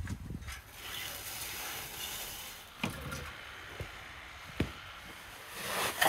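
Rustling handling noise with a few sharp knocks, the loudest just past four and a half seconds, and a swelling rustle near the end.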